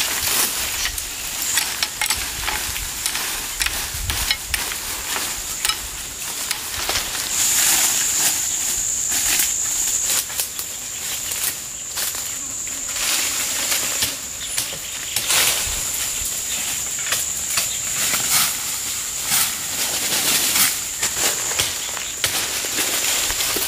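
Insects chirring in a steady high drone, louder for a few seconds about a third of the way in, with frequent short clicks and rustles over it.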